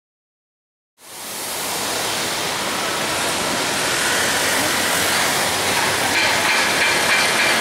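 City street traffic noise fading in after about a second of silence, a steady mix of vehicles, tyres and street bustle, with a motor scooter passing. A faint high steady tone joins it near the end.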